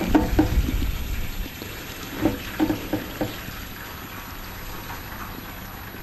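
Kerosene poured from a plastic container's spout into the fuel tank of a kerosene space heater: liquid running steadily, with a few glugs near the start and a quick series of four glugs a couple of seconds in.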